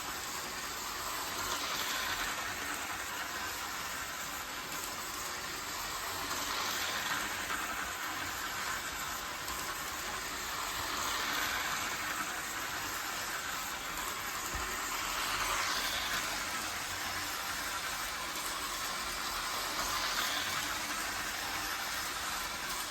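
Lionel L.A.S.E.R. toy train running around its track loop, with its motor and wheels making a steady whirring rattle. The sound swells about every four and a half seconds as the train passes close by on each lap.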